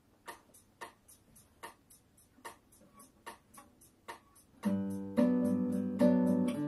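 A steady run of sharp clicks, about two and a half a second, then a classical guitar starts playing chords and picked notes about four and a half seconds in, much louder than the clicks.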